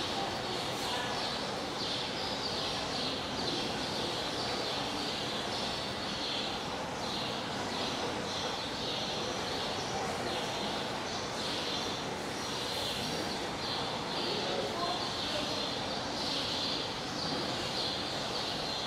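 Outdoor zoo ambience: a faint murmur of visitors' voices under a continuous high-pitched chirring that pulses about twice a second.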